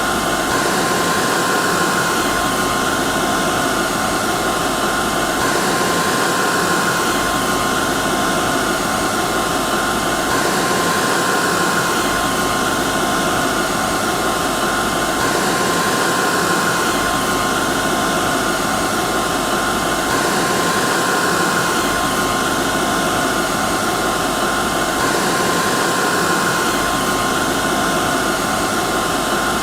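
Hair dryer running steadily: a continuous rush of air with a steady high whine from the motor and fan. The same faint pattern recurs about every five seconds.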